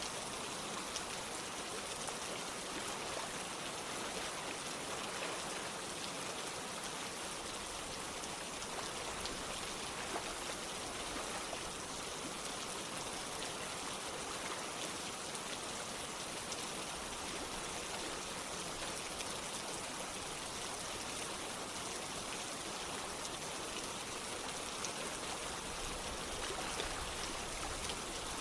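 Rain falling together with running water: a steady, continuous hiss speckled with the fine patter of drops.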